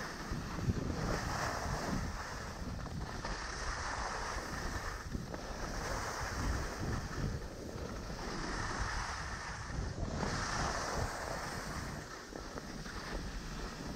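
Wind buffeting the microphone of a camera carried by a downhill skier, with the hiss of skis scraping over groomed snow swelling and fading every two to three seconds.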